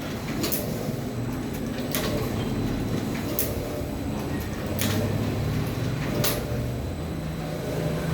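Shengtu wire stitching machine stapling: five sharp clacks about a second and a half apart as the stitching head drives the wire staples, over the motor's low steady hum. The strokes stop about six seconds in.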